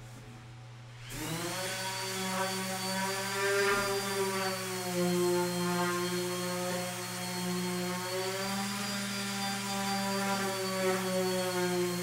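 Electric orbital sander switched on about a second in, spinning up quickly, then running steadily on a wooden frame with its pitch wavering slightly.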